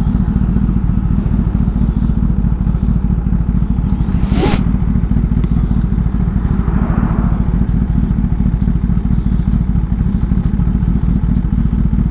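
Kawasaki ZX-10R's inline-four engine running while riding, with heavy wind buffeting on the microphone. A short sharp sound with a quick rising squeal comes about four and a half seconds in.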